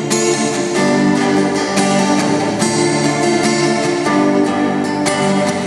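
Instrumental song outro with a plucked guitar part over sustained backing notes, no singing.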